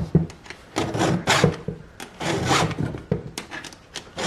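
A hand file rasping across the cutter teeth of a chainsaw chain during sharpening, in several separate strokes about a second apart.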